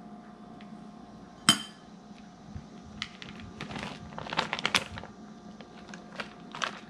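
Kitchen utensils and dishware handled on a counter: one sharp knock about a second and a half in, then a run of light clinks and taps from about three to five seconds in, over a faint steady hum.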